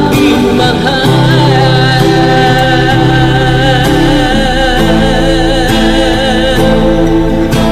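Loud ballad music: a sustained melody line held with vibrato over steady bass and chords.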